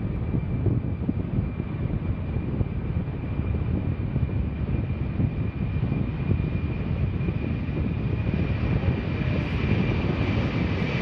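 The turbofan engines of a C-5M Super Galaxy running at takeoff power during the takeoff roll: a steady low rumble with a thin, steady high whine above it.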